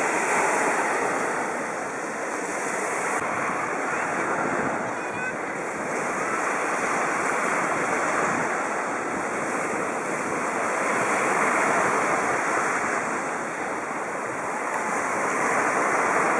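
Small sea waves breaking and washing up on a sandy beach, the surf swelling and easing every few seconds.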